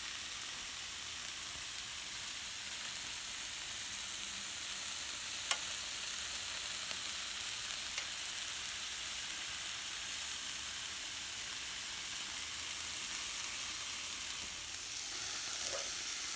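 Meat sizzling on a grill: a steady frying hiss, with one sharp click about five seconds in.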